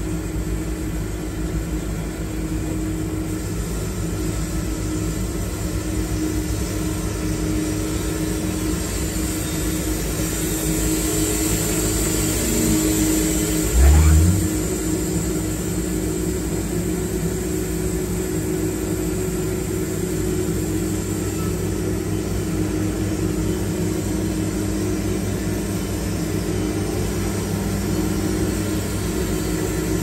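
Wood-Mizer LT70 Wide sawmill running steadily, its engine driving the bandsaw blade through a cedar log. About halfway through there is a brief, louder surge that rises in pitch.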